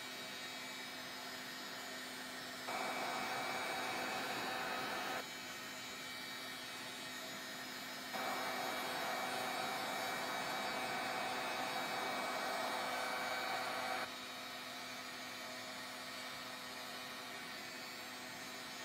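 Craft heat gun blowing in two runs, about two and a half seconds and then about six seconds, each starting and stopping sharply, while it dries wet water-based stain on a card. A steady hum carries on under and between the runs.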